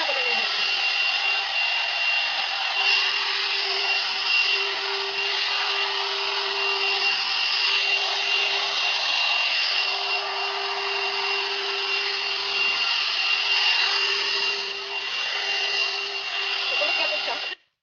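Hot air brush (1000 W hair dryer brush) running, a steady rush of air with a high whine from its motor, cutting off near the end.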